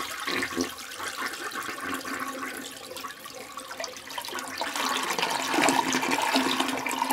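Toilet flushing, a long rush of water that swells again about five seconds in, played as a novelty ringtone.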